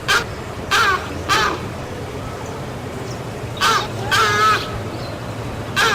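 Heron squawking: short, harsh calls with a wavering pitch, three in quick succession at the start, two more a little past the middle, and another beginning right at the end.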